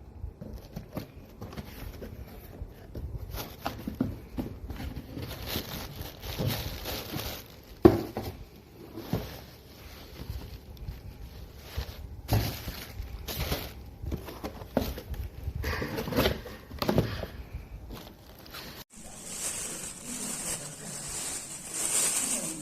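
Cardboard box and plastic packaging being handled and opened, with irregular rustling, scraping and knocks and one sharp knock about eight seconds in. Near the end this gives way to a steady hiss.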